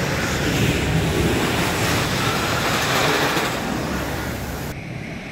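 Roller coaster train running along its track: a loud, steady rushing roar with a low rumble underneath. The hiss in the roar drops away suddenly near the end.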